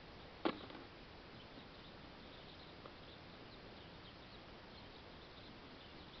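One sharp knock about half a second in, with a smaller tick a few seconds later, over a quiet outdoor background with faint high chirps throughout.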